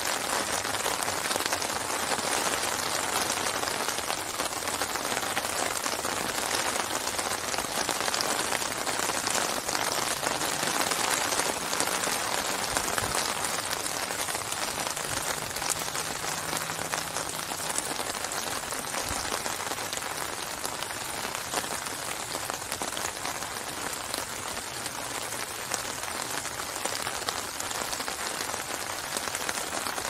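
Steady rain falling on open water: a dense, even patter of drops hitting the surface.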